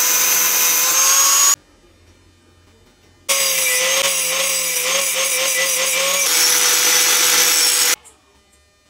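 Angle grinder with a cut-off disc cutting through a steel bicycle frame tube, with a steady whine over the grinding. It cuts for about a second and a half, pauses, then cuts again for about four and a half seconds and stops near the end.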